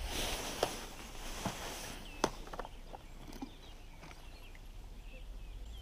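Rustling and a few sharp clicks from a plastic tackle box being handled as lures are sorted.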